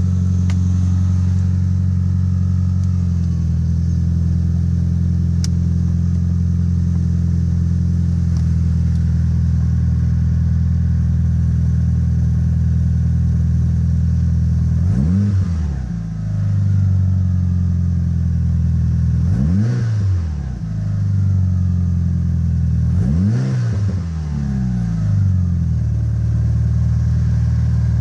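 Tuned Evo VIII MR 2.0-litre turbocharged four-cylinder engine in a Mitsubishi Lancer Evolution IV, idling steadily, its idle easing down slightly about three seconds in. In the second half the throttle is blipped three times, about four seconds apart, each rev rising and falling quickly, the last followed by a smaller second blip.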